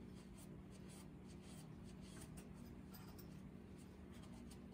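Faint rubbing and light scratching of a cloth shop towel wiping an outboard motor's propeller shaft clean, over a steady low hum.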